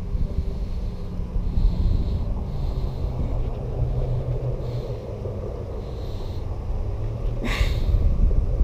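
Wind buffeting the microphone as a low, uneven rumble, with one short sharp sound about seven and a half seconds in.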